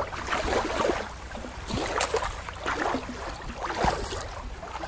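Shallow water lapping and trickling against a rocky shore, with small irregular splashes.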